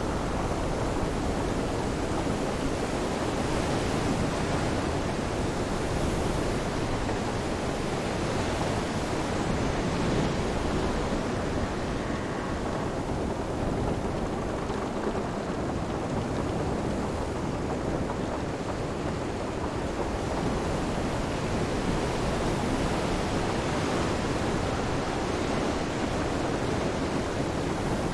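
Storm ambience of steady wind, rain and surf washing in, swelling gently in and out.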